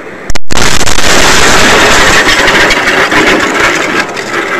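A dashcam car crashing on a snowy road. About half a second in, a sudden, very loud noise cuts in and overloads the microphone, then slowly dies away over about four seconds.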